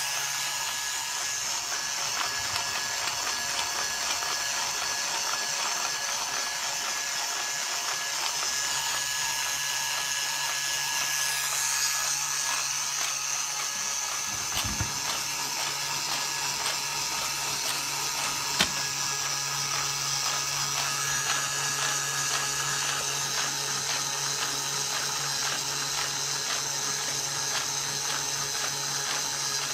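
Plastic gears of a 3D-printed model gearbox turning and meshing: a steady, rapid clatter of gear teeth over a low hum, with a single knock about halfway through and a sharp click a few seconds later.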